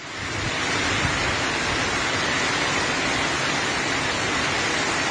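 Heavy tropical-storm rain pouring down, a steady, even hiss.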